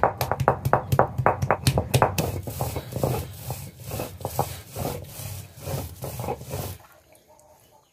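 Soaked turmeric root being crushed and ground on an ammi, a flat stone grinding slab, with its stone roller. Quick knocks, about five a second, for the first two seconds as the root is crushed, then a rubbing stone-on-stone grind that fades out near the end.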